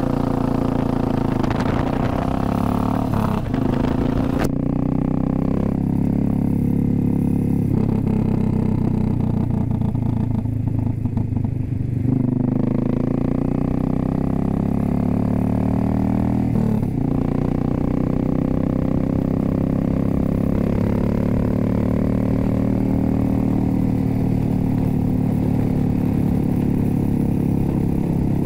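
A 2006 Suzuki S40 Boulevard's 650cc single-cylinder engine running under way. The note shifts about four and a half seconds in and breaks briefly around seventeen seconds in, then climbs steadily as the bike accelerates.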